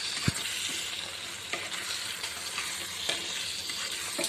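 A spatula stirring paneer cubes and green peas into sizzling masala in a pan: a steady frying sizzle with a few knocks of the spatula against the pan, the sharpest just after the start.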